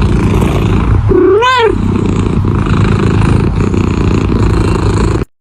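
Domestic cat purring loudly and steadily close to the microphone, with one short meow that rises and falls about a second in.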